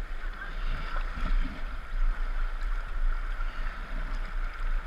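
River water rushing and sloshing right at a camera mounted on the side of an inflatable raft at the water line, an unbroken hiss with a low rumble of water buffeting the microphone.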